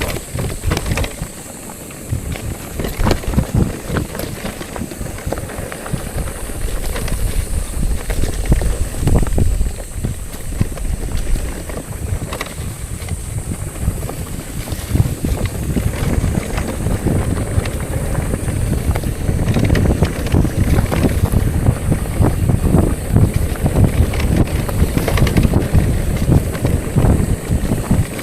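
Wind buffeting the microphone of a camera riding along on a moving bicycle, a rumbling that swells and fades, mixed with rattly tyre and road noise.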